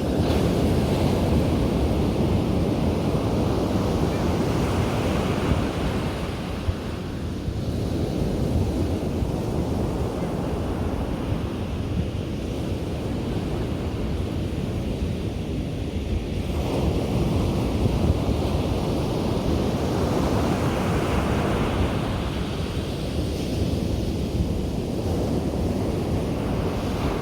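Ocean surf breaking and washing on a beach, a continuous rush that swells and eases every few seconds, with wind buffeting the microphone.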